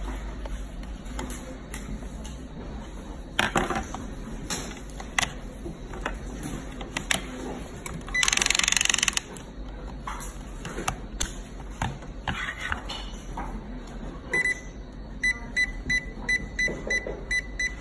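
Digital locker lock's touch keypad beeping as keys are pressed: one longer beep, then a quick run of short, high, evenly spaced beeps, about three a second. Before that, scattered plastic clicks and knocks as the lock body is handled, with a loud sharp knock and about a second of rushing noise midway.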